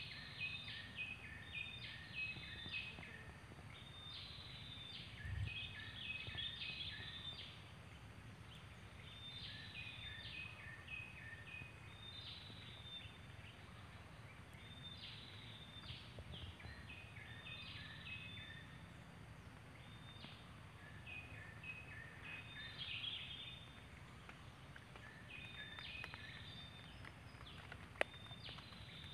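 Yellow-vented bulbul nestlings begging at the nest: bursts of rapid, short high chirps repeated every few seconds, over a low steady background rumble. One sharp click near the end.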